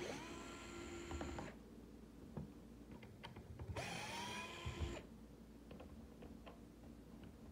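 DeWalt cordless screwdriver running in two short bursts of about a second each, backing Phillips-head screws out of a plastic multimeter case. Its whine rises as the motor spins up and then holds steady. Small clicks come between the bursts.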